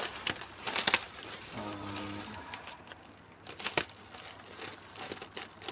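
Plastic and foam packaging being unwrapped by hand from a motorcycle body panel: crinkling and crackling in short, scattered rustles.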